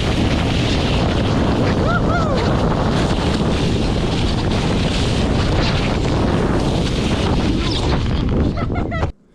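Wind buffeting an action camera's microphone in a snowstorm, a loud steady rush. There is a brief rising-and-falling voice call about two seconds in, and the rush cuts off suddenly near the end.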